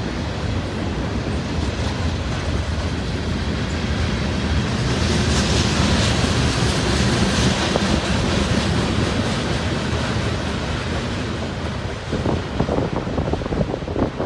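Freight cars of a mixed manifest train rolling past on jointed track, a steady rumble and rattle of steel wheels on rail. Near the end the last car clears, leaving gusts of wind buffeting the microphone.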